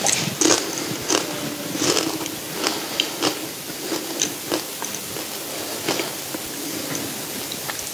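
Congregation chewing communion bread: irregular crisp crunches and small clicks.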